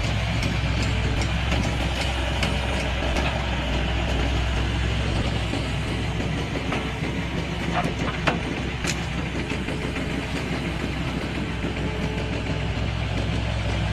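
Heavy excavator's diesel engine running steadily with a deep hum, with a few sharp metallic clicks about eight to nine seconds in.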